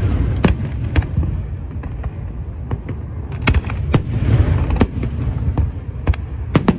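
Aerial fireworks show: a string of sharp bangs from shells bursting, some close together, over a steady rumble of booms, with a burst of crackling about four seconds in.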